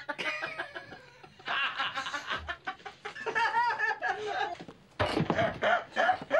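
Two men laughing heartily in bursts, with a low thump about five seconds in.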